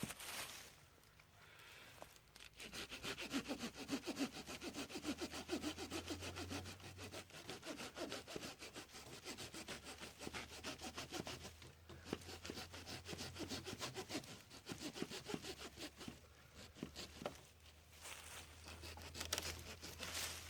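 Hand saw cutting through wood in fast back-and-forth strokes, starting about two seconds in, stopping briefly a few seconds before the end, then starting again.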